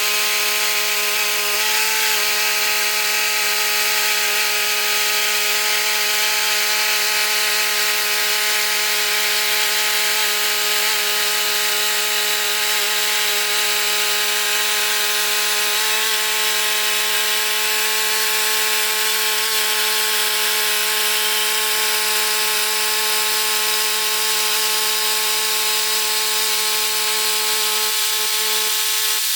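Band sawmill running steadily, its Ripper 37 blade sawing through a white oak log: a continuous even engine hum under the hiss of the cut.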